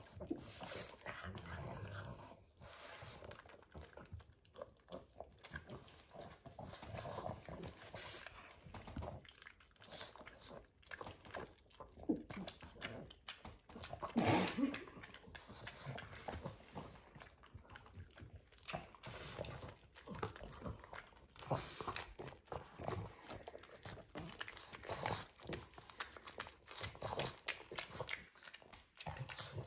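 Pugs licking and chewing a banana, with wet smacking and snuffling clicks throughout. One louder, briefly pitched sound comes about halfway through.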